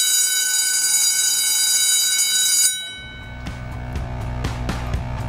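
An electric bell rings loudly and steadily for nearly three seconds, then cuts off suddenly. Background music with a steady beat and strong bass comes in just after.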